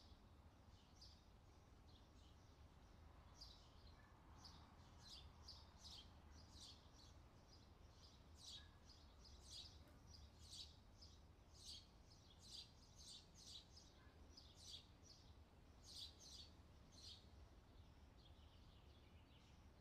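Faint bird chirps, short high calls repeated irregularly and coming more often in the middle and later part, over a low steady hum.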